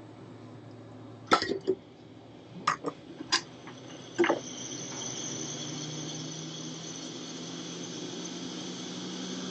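A few sharp clicks and knocks of soldering tools being handled, then from about five seconds in a steady airy rush with a faint whine, typical of a hot-air rework station's blower starting up.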